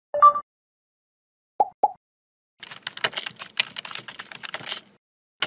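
Computer keyboard typing: a fast run of key clicks lasting about two seconds. It is preceded by a short tone and two separate clicks, and one sharp click comes near the end.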